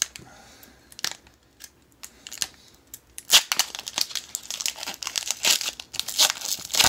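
Foil wrapper of a 2019-20 Upper Deck Credentials hockey card pack being torn open and peeled back. Scattered sharp crackles come first, then a dense run of crinkling from about three seconds in.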